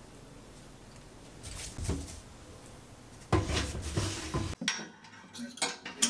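Household items being handled and set down, with a clattering stretch in the middle and then several sharp separate knocks near the end.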